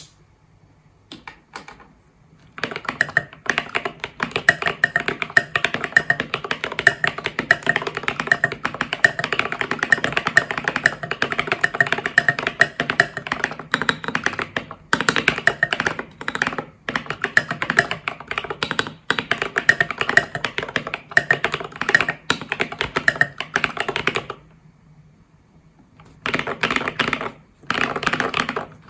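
Mechanical keyboard being typed on: an IDOBAO ID80 v1 with foam between PCB and plate, lubed and filmed Glorious Panda tactile switches and SA-profile keycaps, picked up by a phone's microphone. A few single key presses come first, then quick continuous typing, broken by a pause of about two seconds near the end before the typing resumes.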